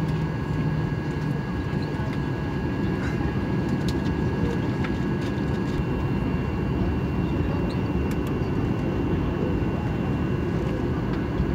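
Cabin noise of a Boeing 737-800 with its CFM56 jet engines running: a steady low rumble with a thin, high, steady whine over it.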